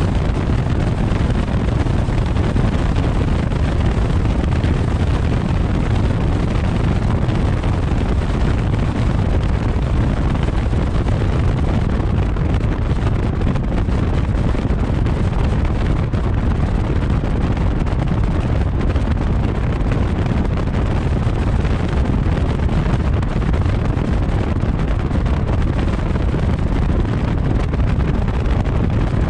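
Wind buffeting a camera microphone mounted outside a moving 2012 Fiat 500 Abarth, low by the front wheel, mixed with tyre roar on asphalt: a loud, steady, deep rumble.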